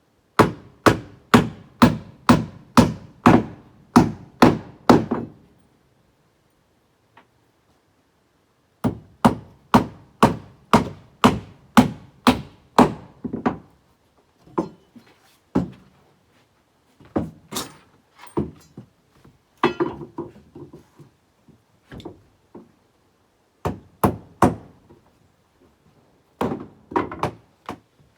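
Hammer driving nails into porch floor boards: runs of steady blows, about two to three a second, with a pause between runs and scattered single knocks later on.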